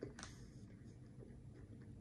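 Faint chewing of a soft marshmallow cake, with one short click at the very start.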